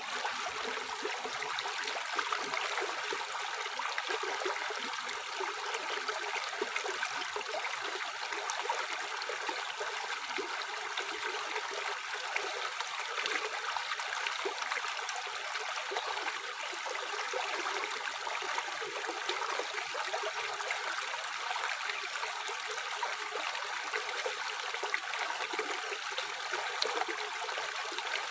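Tap water running steadily into a sink, a constant splashing hiss with faint pops and trickles.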